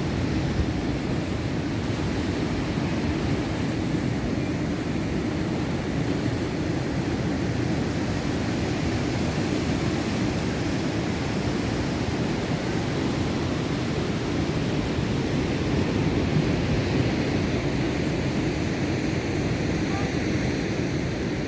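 Storm-driven heavy surf: rough sea with big waves breaking, a steady low rumble with no distinct breaks.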